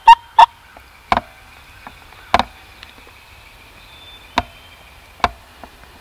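Sharp, loud turkey clucks and yelps: a quick run of notes right at the start, then single clucks spaced a second or two apart.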